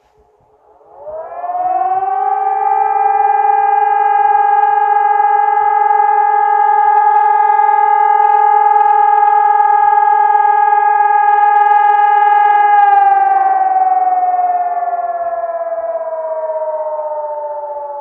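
Several civil-defence sirens, including E57 electromechanical sirens, sounding together in a routine siren test. About a second in they wind up into a steady, multi-pitched tone that holds for about twelve seconds, then wind down slowly, falling in pitch.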